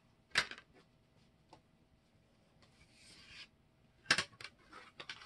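Plastic machine plates and paper being handled on a tabletop. A sharp click comes at the start, a brief rubbing slide about three seconds in, and a quick run of clicks and taps near the end.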